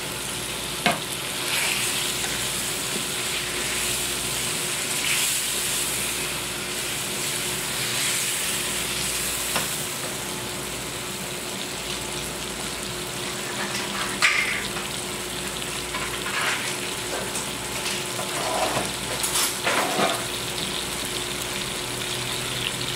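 Chicken sizzling in oil and spice masala with freshly added ground tomato in a nonstick wok, a steady frying sizzle. A wooden spatula stirring the pan scrapes and knocks against it every few seconds.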